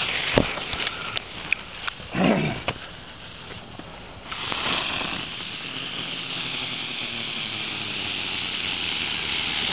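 Legend ground bloom flower fireworks spinning on the ground and hissing, with a few sharp pops in the first two seconds. About four seconds in, a louder, steady hiss starts and holds.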